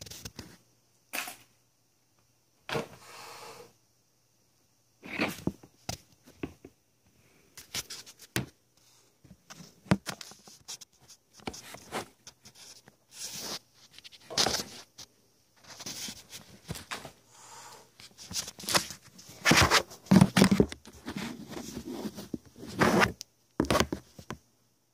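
Scattered rustles, scrapes and knocks as a cat paws at and nuzzles a black leather camera bag, in short separate bursts with the loudest knocks clustered about twenty seconds in.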